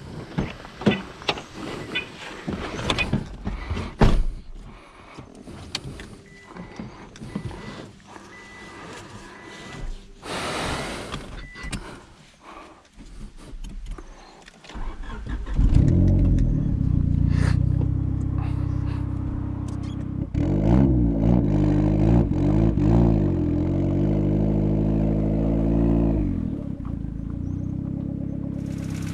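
Scattered clicks and knocks, then, about halfway through, a forged, turbocharged Honda Civic D16 four-cylinder engine starts and runs. It is blipped up and down a few times and then settles to a steady idle.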